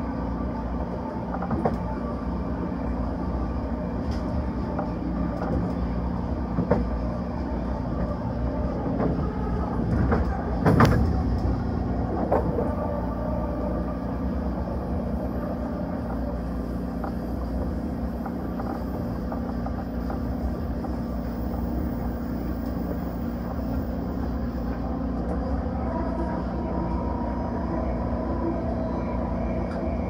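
Passenger train running along the track, heard from inside a carriage: a steady rumble and hum of wheels on rail with scattered light clicks, and one loud sharp knock about eleven seconds in.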